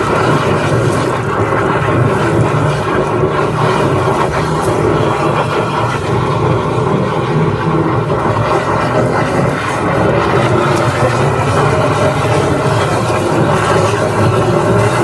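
High-pressure drain jetter running steadily, pumping water through a hose to a 1/4-inch jetting nozzle working inside a drain pipe, with a constant engine hum under the rush of water.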